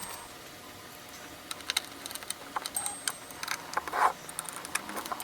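Light plastic clicks and taps from a Chronos digital chess clock being handled and put back together, with a short high beep about three seconds in.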